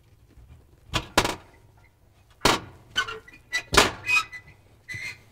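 A series of sharp metal clicks and knocks as the slip-on wire connectors are worked off the terminals of an electric oven bake element and the element is handled against the oven's back wall.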